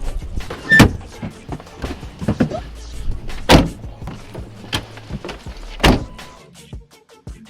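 Background music with a beat of sharp percussive hits, the heaviest about every two and a half seconds.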